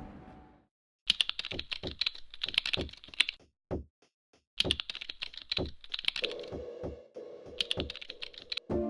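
Keyboard typing: rapid runs of key clicks that pause for about a second partway through, then resume. A steady low musical tone comes in about six seconds in.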